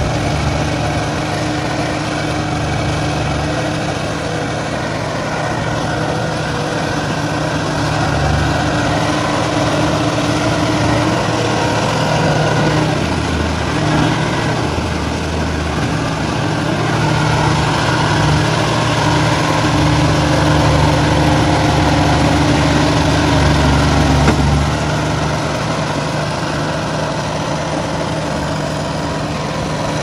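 Engine of a tracked rotary-tiller machine running steadily as it works through a flooded rice paddy, a little louder in the middle stretch.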